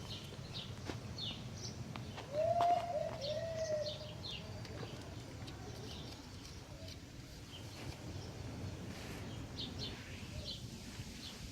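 Small birds chirping in the background, with two short, lower arched calls about two and a half seconds in, and a few faint clicks.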